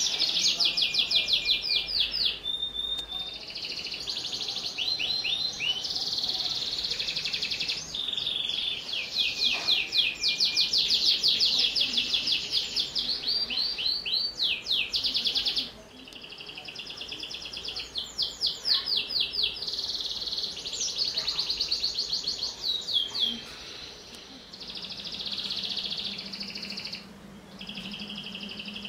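Domestic canary singing a long, continuous song of rapid trills and rolls, switching to a new trill every second or two, with a few short pauses.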